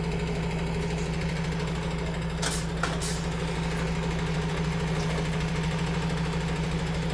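Diesel engine of a MAN truck tractor running steadily at low revs during slow manoeuvring, with two short hisses about two and a half and three seconds in.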